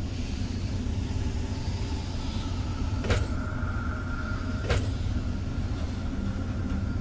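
A video game's ambient soundscape for an underground industrial interior: a steady low rumbling drone, with two sharp knocks about a second and a half apart near the middle.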